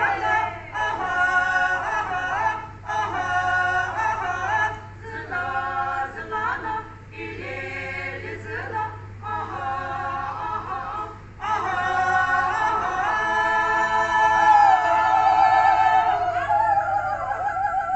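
A group of women singing a traditional Sumi Naga folk song a cappella, in short chanted phrases with brief breaths between them, then a long held note near the end that wavers before stopping.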